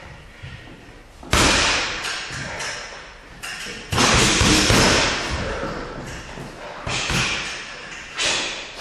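Boxing gloves punching a leather double-end ball: several sharp thuds at uneven intervals, each trailing off in the echo of the gym.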